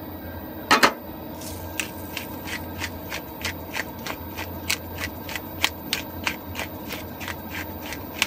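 OXO Good Grips pepper grinder being twisted, cracking peppercorns in a short crunch about three times a second, over a low steady hum. A louder clatter comes about a second in.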